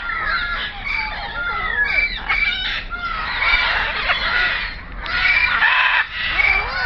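Many birds calling at once in a dense, unbroken chorus of overlapping whistles, chirps and squawks.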